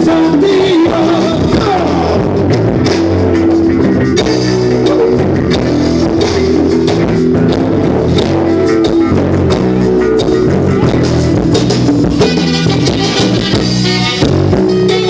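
Live band playing loudly through a stage PA: saxophones and electric guitar over a drum beat, with a singer.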